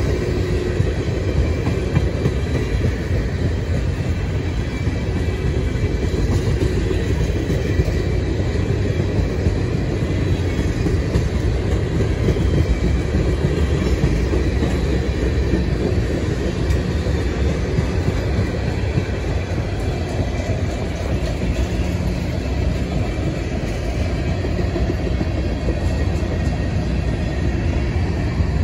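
A freight train's cars rolling past, with a steady, even rumble of steel wheels on the rails.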